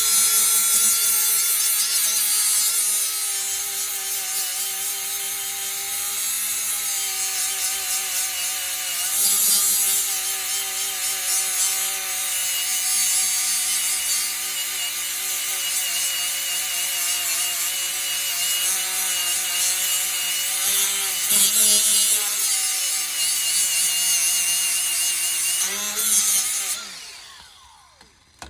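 Electric grinder running and grinding a metal brake caliper bracket so that it will fit, a steady motor whine under a loud hiss that rises and dips as the tool bears on the metal. Near the end the grinder is switched off and spins down, its whine falling away.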